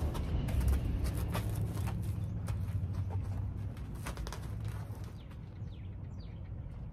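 A horse's hooves stepping on sand as it is led, a few soft thuds spaced about a second apart, over a steady low rumble. Faint bird chirps come in near the end.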